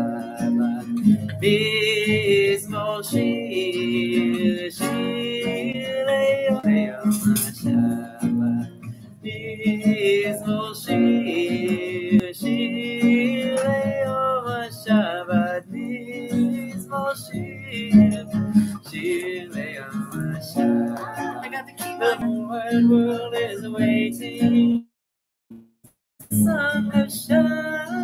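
Acoustic guitar strummed and picked as the accompaniment to a sung Shabbat song. The sound cuts out completely for about a second near the end.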